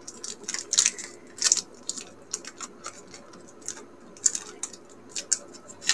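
Crinkly snack wrapper of a Góralki wafer bar crackling in short, irregular crackles as it is opened by hand.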